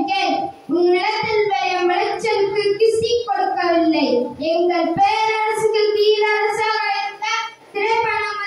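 A child singing into a microphone, with long held notes broken by short breaths.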